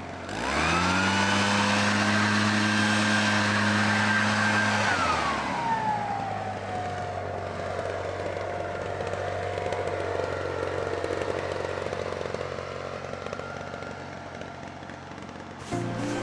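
A motor starts up quickly, runs at a steady pitch for about four seconds, then winds down in pitch and trails off. A clatter starts near the end.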